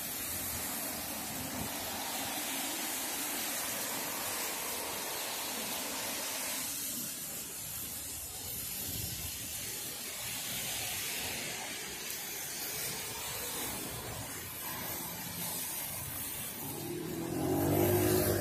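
Traffic on a rain-soaked street: tyres hissing on the wet road, then near the end a motor scooter passing close, its engine the loudest sound.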